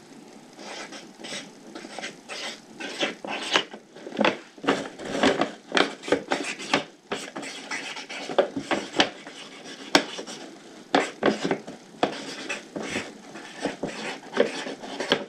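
Marker pen writing on a brown paper bag: a run of short, irregular scratching strokes.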